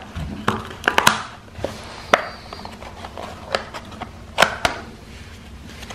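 Fingers peeling a paper seal sticker and opening a small cardboard box: scattered light clicks, taps and a brief scrape of cardboard and paper, about half a dozen in all.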